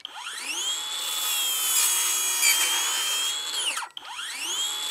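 SKIL PWR CORE 20 XP brushless 7-1/4-inch circular saw with a Diablo blade cutting through a 2x4 with framing nails driven into it. A high motor whine climbs as the blade spins up, holds steady through the cut, cuts off sharply just before four seconds, and climbs again.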